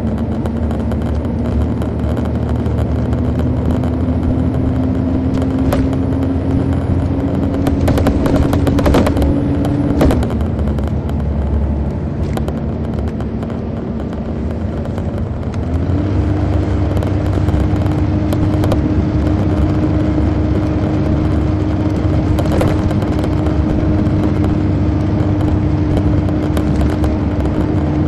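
Detroit Diesel Series 60 diesel engine of a 2002 MCI D4000 coach running under way, heard from the rear of the cabin. Its steady hum climbs slowly in pitch, drops suddenly about ten seconds in, then steps back up a few seconds later and holds. A few clicks and rattles come around the moment of the drop.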